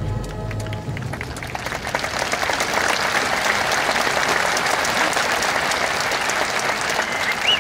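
A large crowd applauding, with a few whistles near the end; it swells up as the fireworks show's music fades out in the first second.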